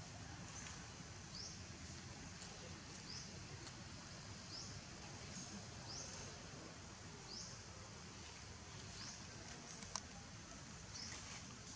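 Faint outdoor ambience with a small animal's short, high chirp, rising in pitch and repeated every second or two, over a low rumble. One sharp click about ten seconds in.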